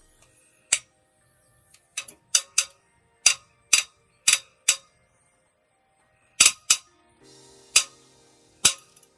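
About a dozen sharp metallic clicks and clinks at uneven spacing, some in quick pairs, from a socket and torque wrench being worked on the cylinder head bolts of a Toyota 2ZR-FXE engine.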